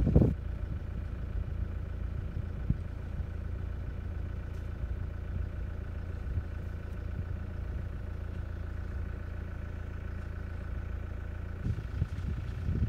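Vehicle engine idling with a steady low rumble and a faint steady high hum. Wind buffets the microphone at the very start and again near the end.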